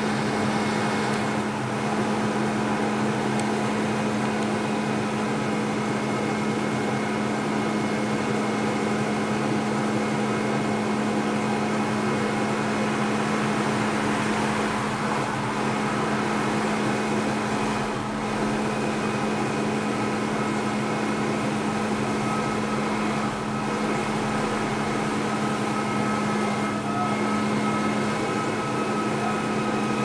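Bucket truck's engine running steadily to power the boom hydraulics: a constant mechanical hum with a steady droning tone.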